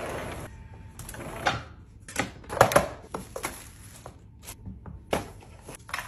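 A sliding glass door rolls briefly at the start. Then come several short knocks and clatters of kitchen work: bread, a knife and a plastic bento lunchbox being handled on a counter.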